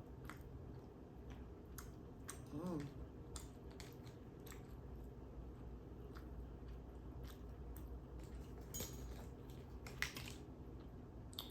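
Close-miked eating sounds: soft chewing and scattered wet mouth clicks while eating a sushi roll, with a short hummed "mm" about two and a half seconds in.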